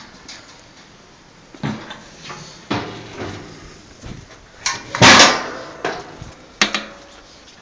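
Heavy steel lids and doors of an offset barrel smoker knocking and clanking as they are handled, about half a dozen metal impacts, the loudest clang about five seconds in with a brief ring after it.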